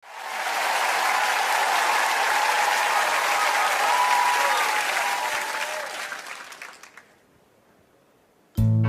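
Audience applauding, dying away over about a second after six seconds in. Near the end a band strikes up with a loud opening chord.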